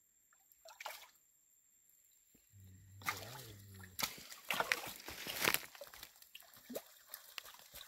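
Muddy pool water splashing and dripping as a gillnet is hauled out of it, water running off the mesh. It starts about three seconds in, after a quiet start.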